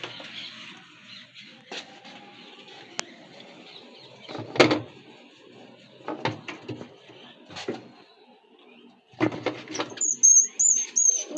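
Knocks and clattering in a washing machine as a mouse is pressed onto a glue trap. Near the end comes a high, wavering squeaking from the mouse caught on the glue.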